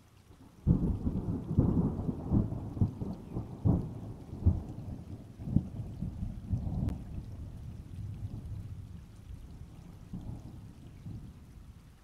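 Thunder: a sudden clap about a second in, rolling and crackling for several seconds, then dying away in a long low rumble.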